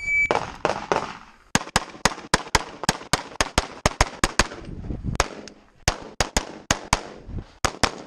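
A short electronic start beep, then a rapid, uneven string of pistol shots, about three to four a second, fired right after the range officer's "stand by" call.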